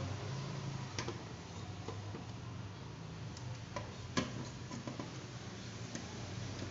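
Scattered light clicks and taps of a screwdriver and screws against the TV's metal chassis as the power supply board is screwed back down. The sharpest click comes about four seconds in, over a low steady hum.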